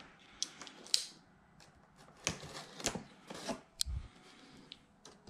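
A cardboard box being handled: scattered light taps, clicks and rustles of cardboard and packing tape, with a dull thump about four seconds in.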